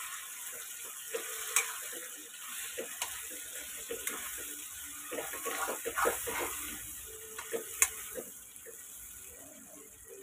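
Mutton brain frying in oil with onions in a metal wok: a steady watery sizzle while a steel spoon stirs it, scraping and clicking against the pan now and then.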